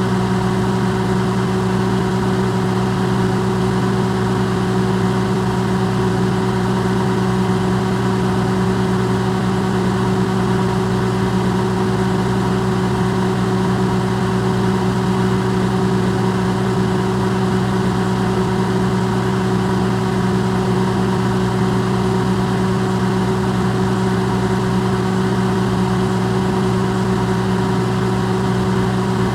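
Electrolux microwave oven running, recorded close up and amplified: a steady hum of several held tones over an even rushing noise, unchanging throughout.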